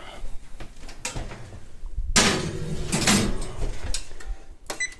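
Kitchen oven door opened and shut with several clatters and knocks as a glass baking dish goes onto the rack, then a beep from the oven's control panel near the end.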